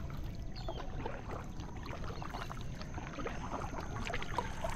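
Kayak paddle strokes in calm water: irregular small splashes and drips over a steady low rumble.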